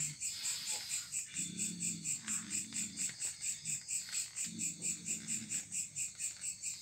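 Crickets chirping in a steady high-pitched pulse, about four or five chirps a second.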